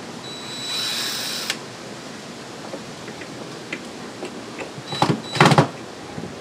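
Cordless drill running against the boat's dash panel in short bursts. It whirrs steadily for about a second near the start, then gives two short, louder bursts about five seconds in.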